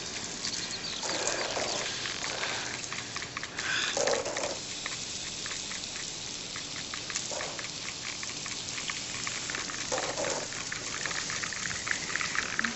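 Lawn sprinkler water spraying and falling like rain: a steady hiss thick with fine pattering droplets. A fuller swell comes about every three seconds.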